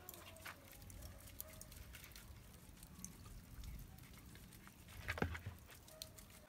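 Faint light pattering and ticks as dry seasoning is shaken from a small shaker bottle onto a raw fish, with a short louder bump about five seconds in.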